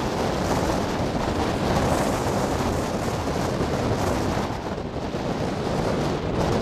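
Strong storm wind blowing across the camera microphone, a steady rushing noise with no let-up.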